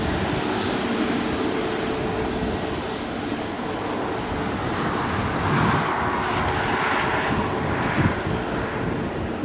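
Boeing 777-300ER's GE90 turbofan engines running at taxi power, a steady jet rush with a faint hum, growing louder and hissier for a few seconds past the middle. Wind buffets the microphone.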